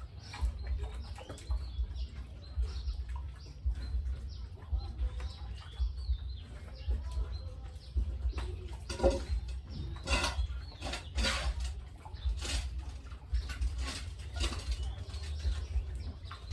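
Chickens calling, with short chirps and clucks throughout and a run of louder squawks or wing-flapping bursts about ten seconds in, over a steady low rumble.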